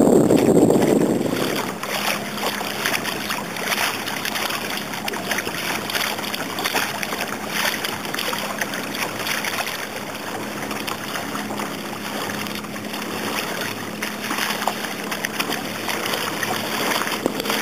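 Sea water splashing and lapping around kayaks in irregular small flicks, with wind on the microphone and a faint steady hum underneath.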